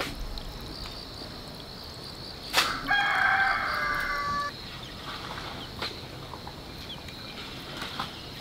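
A rooster crows once, about three seconds in, holding the call for about a second and a half, just after a sharp knock. A steady high insect drone runs underneath, with a few faint knocks later on.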